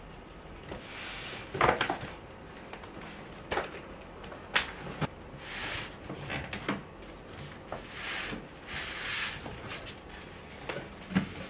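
A cardboard box and a paper shopping bag being pushed and shifted on top of a wooden cabinet: scattered light knocks and scrapes against the wood, with a few bursts of paper rustling in the second half.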